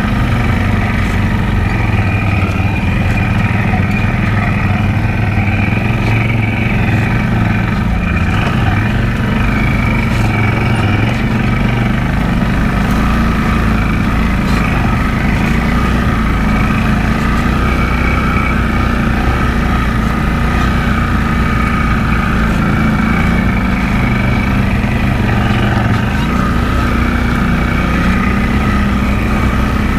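Can-Am Outlander ATV engine running steadily as the quad rides along a trail at a fairly even speed.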